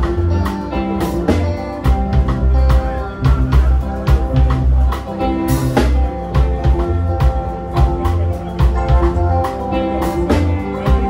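Live band playing an upbeat song with a steady beat: electric guitars, drum kit and keyboard over a strong bass line.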